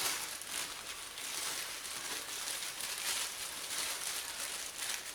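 A thick coconut-milk and rice-flour mixture cooking in a pan, sizzling steadily, with uneven scraping and rustling as it is worked.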